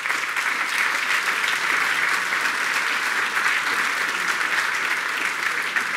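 Large seated audience applauding steadily in welcome, easing a little near the end.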